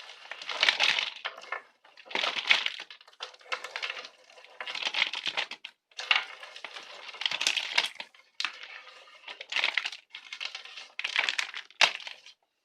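Plastic orchid pot crinkling and bark potting mix rustling as the orchid is worked out of its pot. The sound comes as a series of about ten scrunching bursts with short pauses between them.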